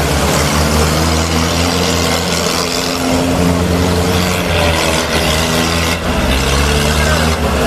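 Off-road 4x4 vehicle engine running steadily at a mud race, with a dense noisy wash over it.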